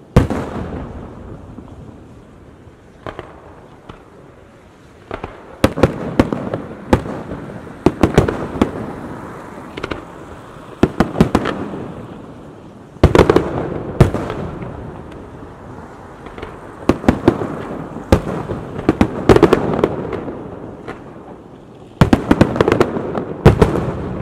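Aerial firework shells bursting overhead in clusters of sharp bangs every few seconds, each volley followed by a rolling, echoing rumble; the loudest volleys come at the very start, about halfway through, and near the end.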